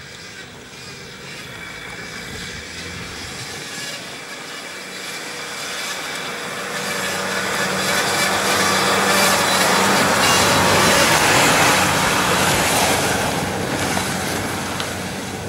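Jeep Wrangler's engine working hard as it climbs a rutted dirt track, with tyre and mud noise, growing louder as it approaches, loudest as it passes close by about ten seconds in, then fading as it pulls away uphill.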